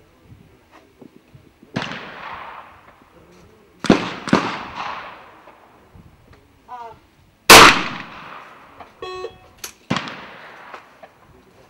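Trap shotgun shots, several, each a sharp crack trailing off over about a second. Two come close together about four seconds in, the loudest about seven and a half seconds in, and a quick pair near the ten-second mark.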